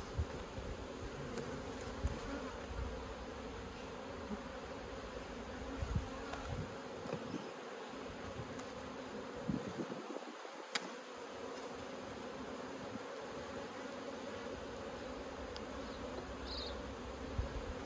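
Honeybees buzzing in a steady hum around an open hive, with a single sharp click about eleven seconds in.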